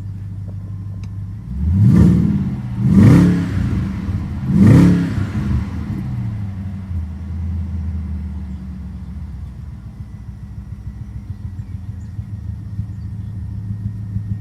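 BMW 650i's 4.8-litre V8 idling, revved three times in quick succession about two, three and four and a half seconds in, then falling back to an idle that pulses unevenly. The uneven idle is the sign of the cylinder 5 misfire the owner describes, which shows most as the revs come down.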